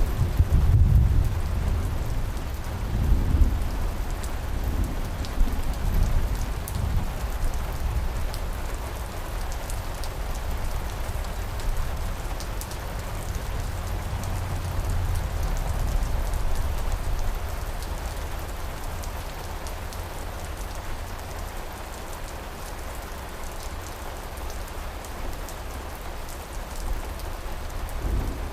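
Steady rain falling on a surface, a continuous hiss with scattered drop ticks. A low rumble of thunder rolls through the first few seconds and fades away.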